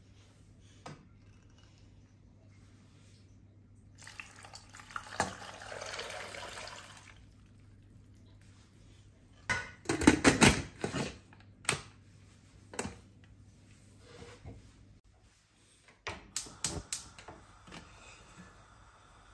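Water poured into a stainless-steel pressure cooker full of whole oranges for a few seconds, then a burst of metal clanks and clicks as the lid is fitted and locked. More clicks and knocks come near the end as the pot is set on the gas hob.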